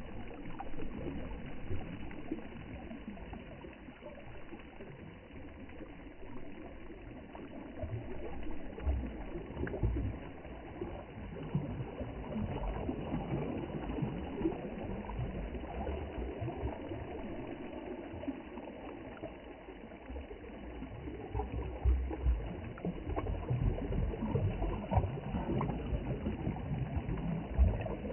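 Sea water washing and lapping, with an uneven low rumble underneath that swells and fades.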